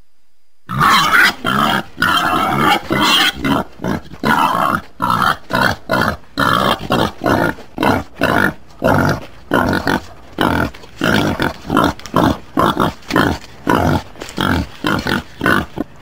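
A pig making a long run of short grunting calls, about two a second, starting just under a second in.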